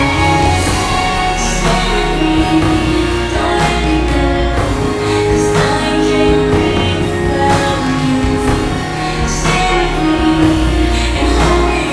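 Music: a song with a sung vocal over a steady bass line.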